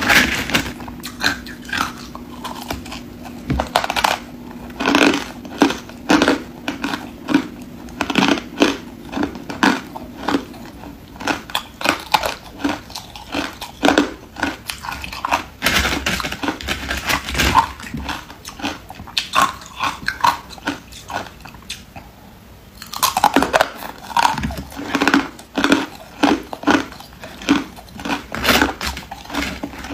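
Hard ice cubes being bitten and chewed: loud, rapid crunches in dense clusters, with a lull of a few seconds a little past the middle.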